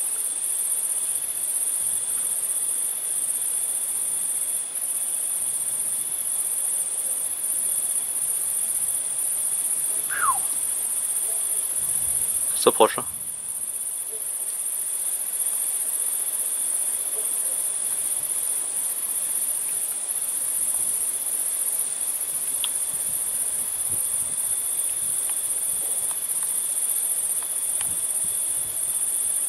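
Crickets trilling in a continuous, high-pitched chorus at night.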